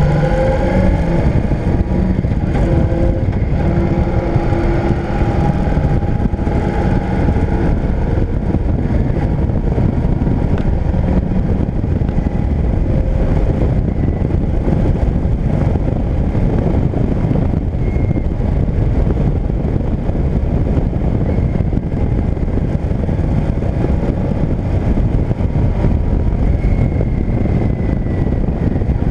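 Motorcycle riding along at road speed: the engine's steady note stands out for the first several seconds, then sinks under a continuous low rush of wind and road noise on the on-board microphone.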